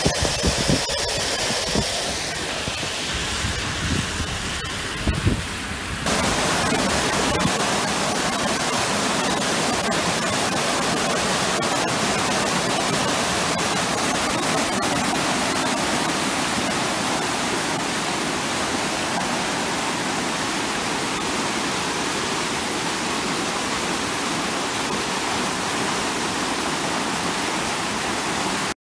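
Swollen brown floodwater rushing and churning through a flooded creek bed, a steady loud rush from the torrential rain. Before it, for the first few seconds, there is road noise from a moving vehicle with a few low thumps. The rush stops abruptly near the end.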